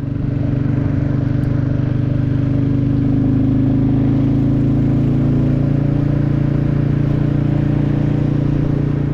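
Royal Enfield motorcycle engine running steadily under way, its level building over the first second, then holding an even note.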